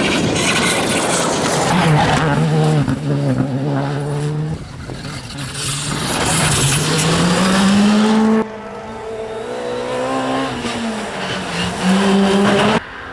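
Rally cars passing at speed one after another, engines revving up and dropping through gear changes, with tyre noise. The sound cuts abruptly twice as one car's pass gives way to the next.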